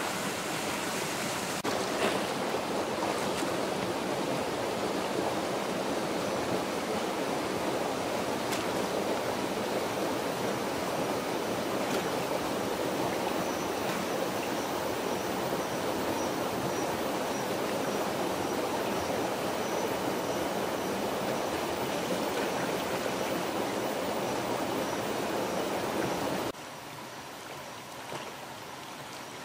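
Rushing water of a rocky stream cascading over boulders, a steady rush; about 26 seconds in it drops suddenly to a quieter flow, with a brief splash from wading near the end.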